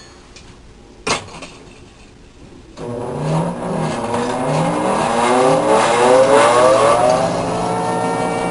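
Electric grinder switched on: after a click, its motor starts with a rising whine as it spins up over about four seconds, then runs steadily at full speed.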